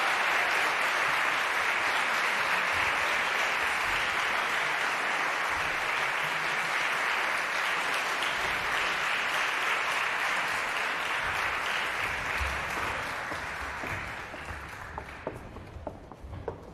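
Audience applauding steadily, dying away over the last few seconds to a few scattered claps.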